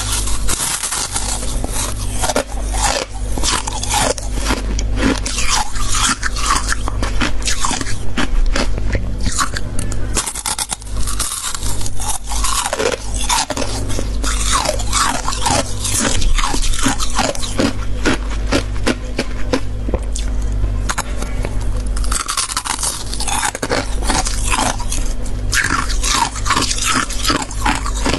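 Freezer frost being bitten and chewed close to the microphone: dense, irregular crunching and crackling, over a steady low hum.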